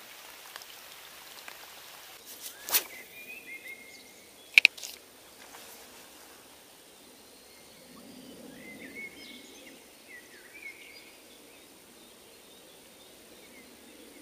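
Quiet riverside ambience with a few faint bird chirps. Two sharp clicks sound from the spinning rod and reel being worked, one about three seconds in and a louder double click about four and a half seconds in.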